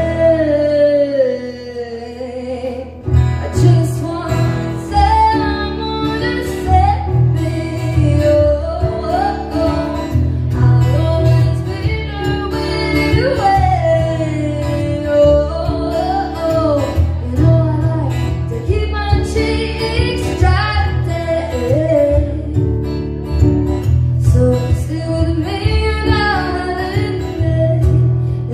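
Live pop-folk performance: a woman sings lead over keyboard and a strummed acoustic guitar.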